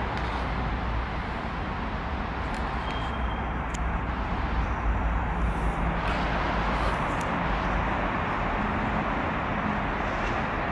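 Steady vehicle and traffic noise: a low rumble with a hiss over it and a few faint clicks.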